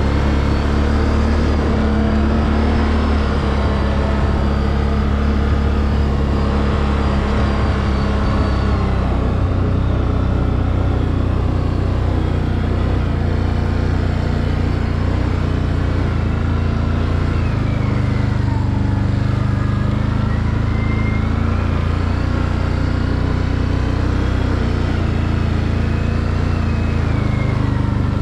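Can-Am Outlander 800 Max XT ATV's V-twin engine running steadily as the quad is ridden. Its pitch dips and then climbs again a little past the middle, with a thin whine riding above the engine note.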